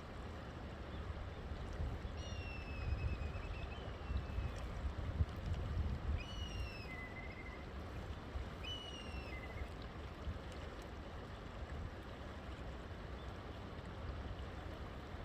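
River water running in a steady rush. A bird calls over it three or four times in the first part, short whistles that slide downward in pitch.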